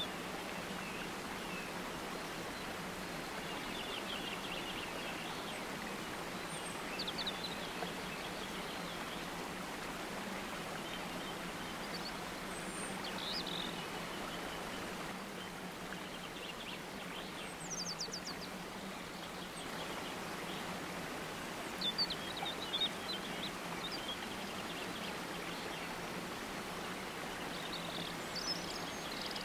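Nature soundscape: a steady rush of flowing water with scattered bird chirps and short trilled calls throughout.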